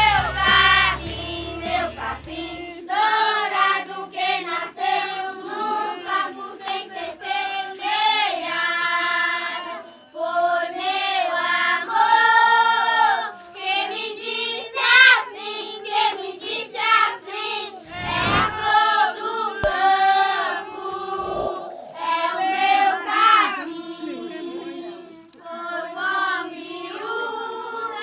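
A group of children singing a song together without accompaniment, their voices in unison. A faint music bed fades out in the first couple of seconds.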